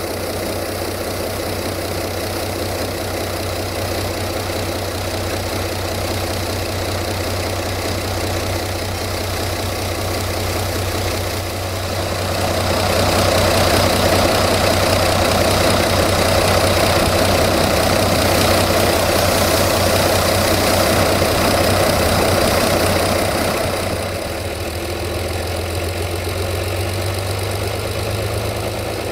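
Underfloor diesel engine of a Caravelle (AMX4500) railcar running while the car stands still, with a steady low hum. About twelve seconds in the sound grows louder and fuller for roughly ten seconds, as during an engine test, then settles back to idle.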